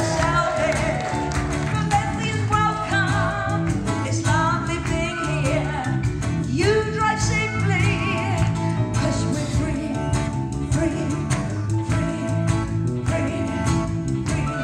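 Live band playing, with drums, bass guitar and keyboard under a woman's lead vocal. There is a steady drum beat throughout and a sung melody line rising and falling over it.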